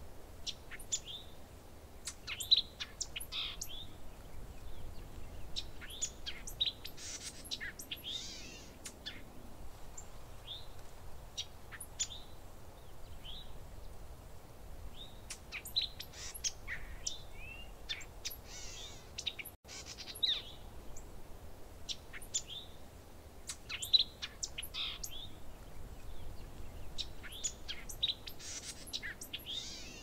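Small songbirds chirping and calling, many short high chirps and trills in clusters, over a faint steady background hiss. The sound breaks off for an instant about two-thirds of the way through.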